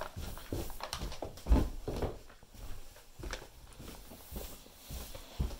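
Footsteps going down carpeted stairs: a few dull, irregular thumps, the loudest about a second and a half in.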